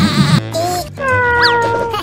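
Cartoon sound effects and music added in the edit: a held, slightly falling pitched tone from about a second in, with a quick swoop up and back down in pitch midway through it.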